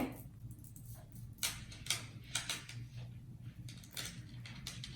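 Tiny Speks magnetic balls clicking together in scattered light, irregular clicks as they are snapped into a long chain.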